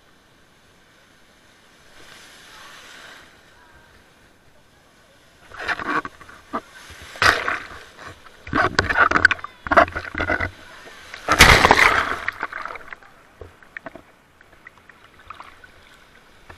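Water splashing and sloshing in several irregular bursts, the loudest about eleven seconds in, after a fairly quiet start.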